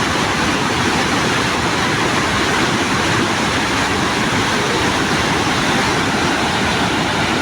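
Victoria Falls heard from a viewpoint: a steady, unbroken rush of falling water.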